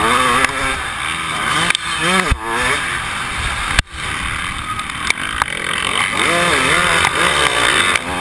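Dirt bike engine revving up and down over and over with throttle and gear changes, heard from the rider's helmet with wind rushing over the microphone. A sharp click and a brief drop in the sound about four seconds in.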